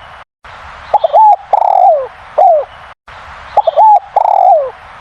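A derkuku (spotted dove) cooing loudly: two repeats of its multi-note song phrase, each a few short notes followed by a longer falling coo, with faint high chirps above it.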